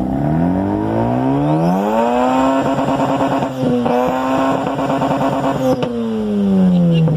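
Mazda RX-7's rotary engine revving: the pitch climbs over about two seconds, is held high for about three seconds with a brief dip partway, then falls back toward idle near the end.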